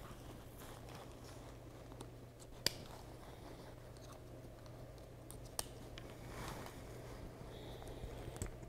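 Backpack straps and nylon webbing being handled, with a sharp plastic click about two and a half seconds in and a smaller one a little after five and a half seconds, as plastic buckles snap shut.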